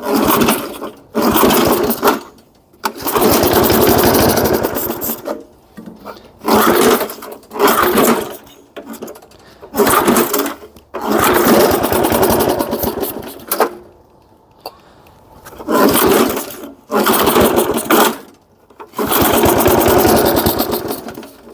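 A 3.5 hp Briggs & Stratton single-cylinder lawnmower engine firing in short bursts of one to two seconds and dying between them, about ten times. It catches but won't keep running, as if the carburetor isn't yet pulling enough fuel up.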